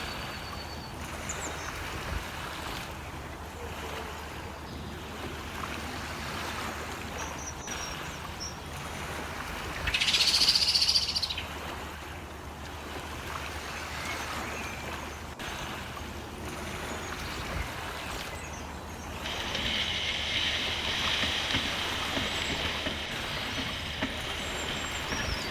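Steady kitchen background hum, with a short loud hiss about ten seconds in; about two-thirds of the way through, a steady sizzle starts, like food frying in a hot pan.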